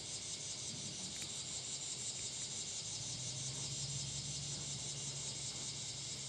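Summer evening insect chorus, crickets, a steady high-pitched trilling with a rapid even pulse.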